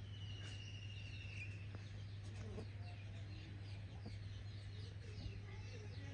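Chickens clucking amid many short, high chirps and peeps, with a rapid trill over the first second and a half. A steady low hum runs underneath.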